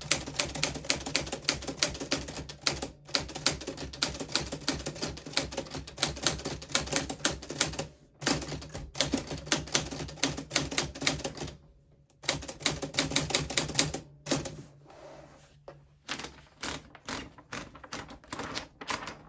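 1940s Smith Corona Silent manual typewriter being typed on: fast runs of key strikes with short pauses about 8, 12 and 14 seconds in, then slower, more spaced strokes near the end.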